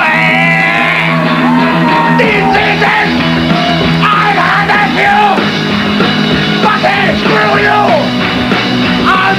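Live studio band playing a loud, fast rock finish with drums and guitar, with a voice singing and yelling over it.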